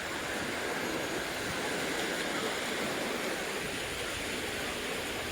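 Ocean surf washing steadily on the beach, a constant rushing hiss.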